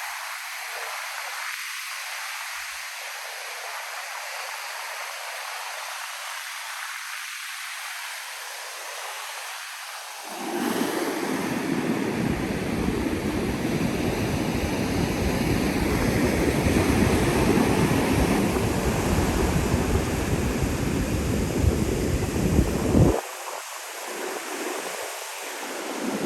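Ocean surf breaking on a sand beach, a steady hiss. About ten seconds in, a much louder, deeper rumbling noise joins it and cuts off suddenly near the end.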